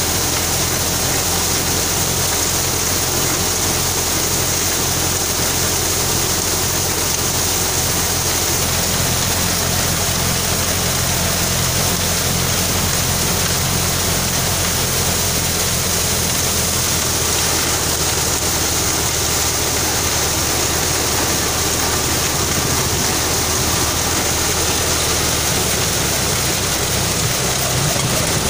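Deluxe threshing machine running steadily: an even, dense rushing noise over a low hum, as threshed soybeans stream from its outlet.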